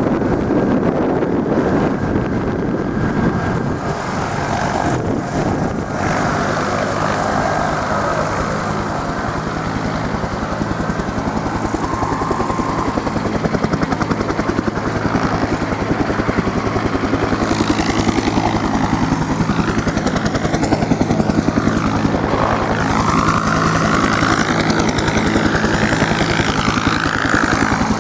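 An aircraft flying overhead: a steady engine drone with a fast, even beat from its blades.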